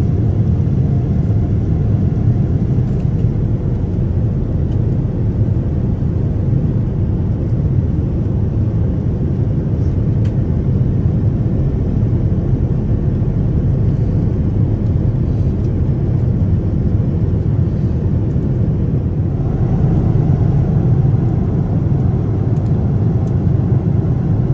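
Steady, deep cabin noise of a Boeing 787-10 airliner in flight, heard from inside the economy cabin: engine and airflow noise with no change in pitch, rising slightly about twenty seconds in.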